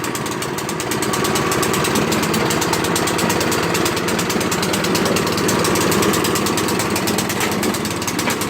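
Gas snowblower's small engine running steadily with a fast, even chugging while the machine is driven in reverse.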